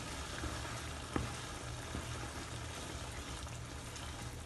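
Coconut cream boiling and bubbling in a pan while a wooden spatula stirs through it, with one light knock about a second in.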